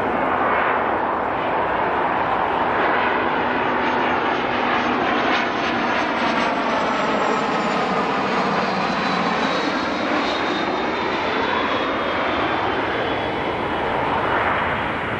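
Cessna Citation business jet on final approach, its rear-mounted turbofan engines giving a loud, steady rush. A high whine slides down in pitch from about the middle onward as the jet passes close by and flares over the runway to land.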